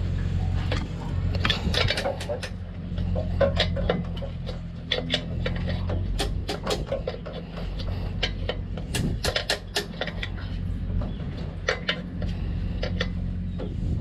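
Metal tools and engine parts clinking and knocking as they are handled, in many short sharp strikes, over a steady low hum.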